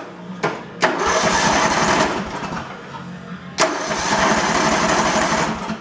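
Old riding mower's engine being cranked over by its starter in two attempts of about two seconds each, without catching. A couple of sharp clicks come just before the first attempt.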